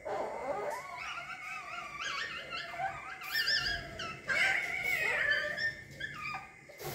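Civets calling: a run of short, high, wavering whining cries, one after another, loudest around the middle.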